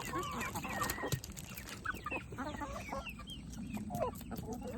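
Backyard hens clucking and calling while they peck at food scraps, many short overlapping calls, with light clicks of pecking and scratching.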